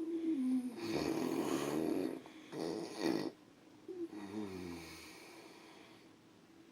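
A man snoring heavily: three loud rasping snores in the first three seconds or so, then a softer, wavering snore around four seconds in that fades out.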